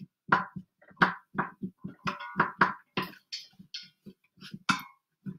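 A cooking utensil knocking and scraping against the pressure cooker's inner pot while zucchini pieces are broken apart and stirred in oil: many short, irregular clacks, some with a brief ring. The oil is not yet hot enough to sizzle.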